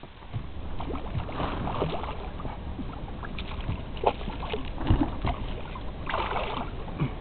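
Water splashing and sloshing against a boat as a hooked fish thrashes at the surface by a landing net, with irregular splashes and knocks; the loudest splashes come about four and five seconds in.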